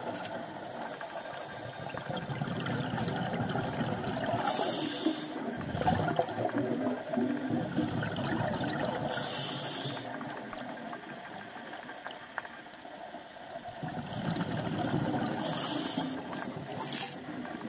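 A scuba diver's regulator breathing underwater: short hisses of inhalation about every five seconds, three in all, alternating with the low bubbling rumble of exhaled air.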